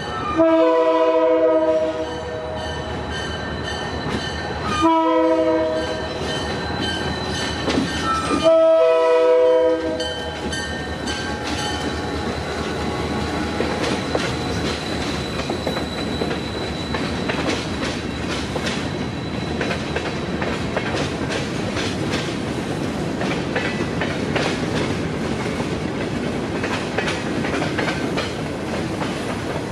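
A diesel locomotive's Nathan K3L three-chime air horn sounds three blasts, the second shorter, over a ringing grade-crossing bell. After the horn the locomotive and a freight train of covered hoppers roll past, wheels clicking steadily over the rail joints.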